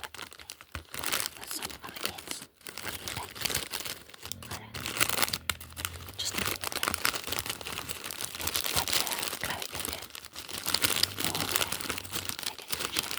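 Packaging crinkling and tearing as it is handled and opened by hand, a dense run of irregular crackles throughout.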